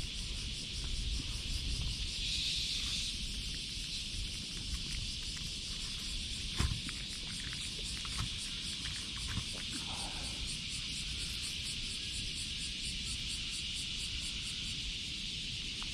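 Insects chirring steadily in a high, continuous pulsing drone. A single sharp knock sounds about six and a half seconds in.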